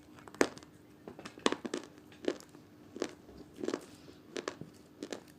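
White slate chips being bitten and crunched between the teeth: a series of sharp, crisp crunches, about one every two-thirds of a second.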